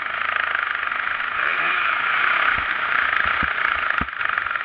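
Motocross bike engine revving up and down, heard onboard under a steady rush of wind noise on the microphone. A few sharp knocks come in the second half, the strongest about four seconds in, as the bike jolts over the dirt track.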